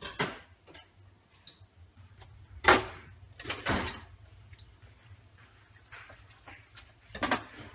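A handful of separate short knocks and clatters, the loudest about two and a half seconds in, over a faint steady low hum.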